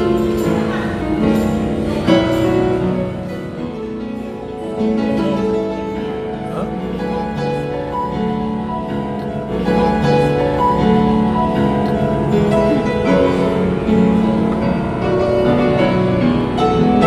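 Background music with slow, sustained melodic notes.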